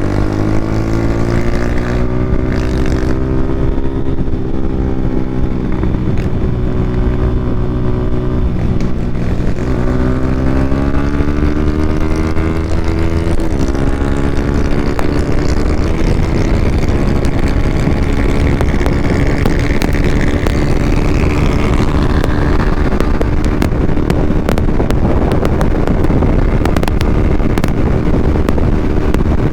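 Yamaha Sniper 150's single-cylinder engine through an open EXOS R6 exhaust with no silencer, pulling with its pitch rising, dropping about nine seconds in as it shifts gear, then rising again. From about fourteen seconds in the engine note gives way to a steady noisy rush with scattered ticks.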